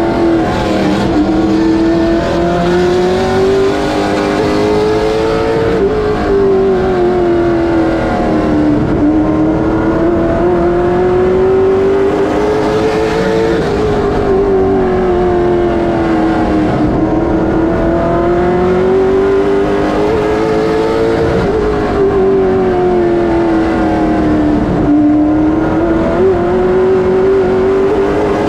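Late model stock car's V8 engine heard from inside the cockpit under race load, its pitch climbing on each straightaway and dropping off into each turn, about every eight seconds.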